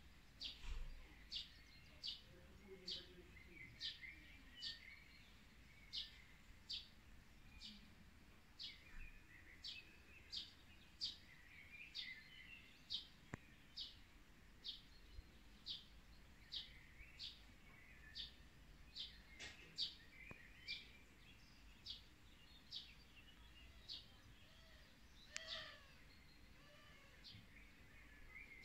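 A small bird calling with short, sharp chirps repeated a little over once a second, with softer twittering behind.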